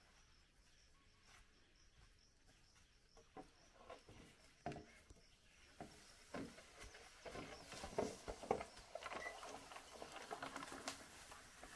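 Long green bamboo poles being handled and dragged through grass: faint scattered knocks and scrapes, coming more often in the second half, with footsteps. A faint high chirping repeats evenly in the first few seconds.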